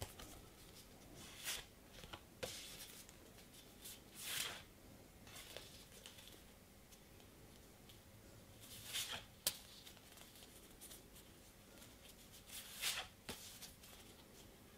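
Stiff cardboard postcards being handled and swapped one behind another: a few brief, faint swishes and slides of card against card, with one sharp tick about halfway through.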